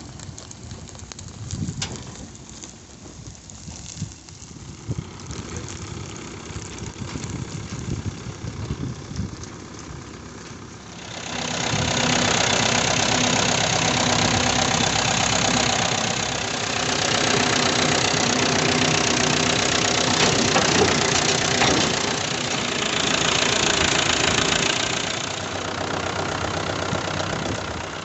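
Mahindra 595 Turbo tractor's diesel engine running quietly, with scattered knocks. About eleven seconds in the sound jumps much louder into a steady rushing drone as the tractor pulls the straw reaper through the stubble.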